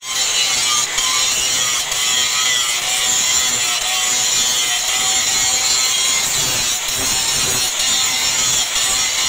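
Angle grinder with an abrasive disc cutting steel: a steady, high hiss of the disc in the metal over the motor's whine, throwing sparks throughout.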